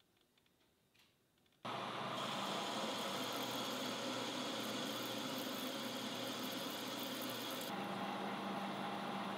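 Faint ticks, then a metal lathe starts loud and steady, turning a 1144 stress-proof steel bar with a cutting tool. About eight seconds in the higher hiss drops away, leaving a steadier machine hum.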